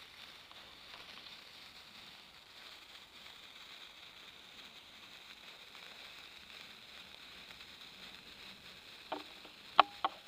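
Sparkler burning with a faint, steady fizzing crackle. Near the end come three short, sharp clicks, the middle one the loudest.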